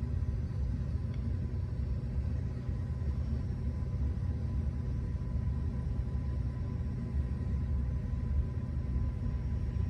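Steady low background rumble with a faint constant hum; no distinct sound from the work stands out.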